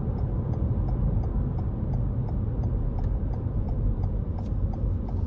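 Road and engine noise inside a moving car, a steady low rumble, with the turn-signal indicator ticking faintly about three times a second.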